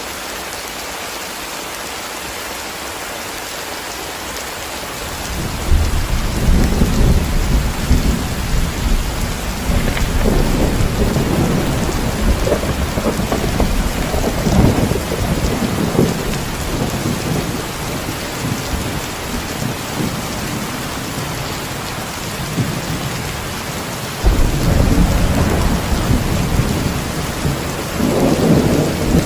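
Steady heavy rain hissing, with long rolls of thunder rumbling in about five seconds in and a fresh roll breaking in near the end.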